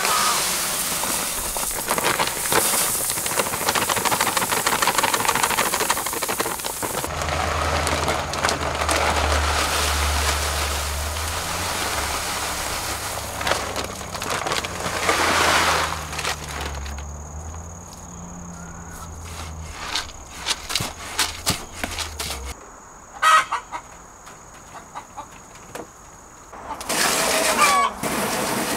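Dry grain poured from feed bags into a plastic bucket feeder, a steady rushing patter, with chickens clucking. There are scattered clicks and one sharp knock; near the end water starts rushing from a hose into a plastic water container.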